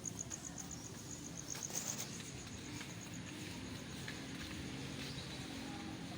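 Faint insect trilling: a high, rapid pulsing that fades out about halfway through, over a low background hum.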